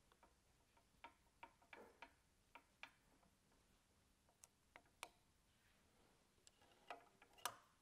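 Faint, irregular metallic ticks and clicks of a T-handle Allen key working the set screws in a pump's sleeve coupling, over near silence.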